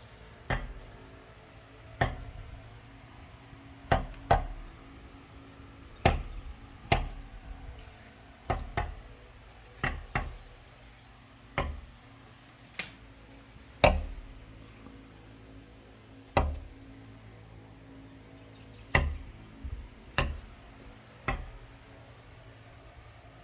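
A series of single sharp knocks, irregularly spaced, roughly one every one to two seconds, some in quick pairs, each dying away briefly.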